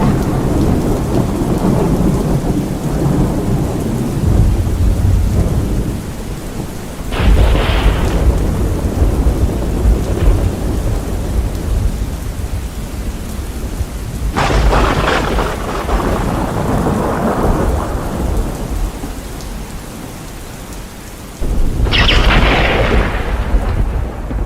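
Thunderstorm: steady rain with thunder. Three sudden thunderclaps, about a third of the way in, past halfway and near the end, each trailing off into a long low rumble.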